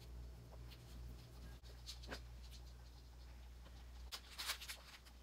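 Faint taps and rustles of ingredients being handled and set down on a stainless steel tray, including a bunch of radishes, with a cluster of small clicks near the end, over a low steady hum.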